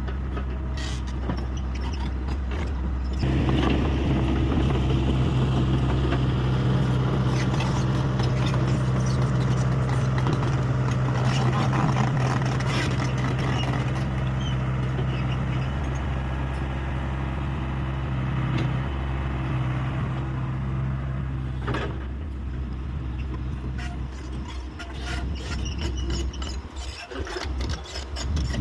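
Hyundai 85A excavator's diesel engine running, its note growing heavier and louder about three seconds in as the machine works, with scattered clanks. The engine eases back toward a lighter, more even run over the last several seconds.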